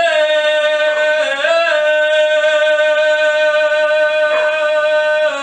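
A man singing one long held note, unaccompanied, with a slight rise in pitch about one and a half seconds in before it settles again; the note cuts off at the very end.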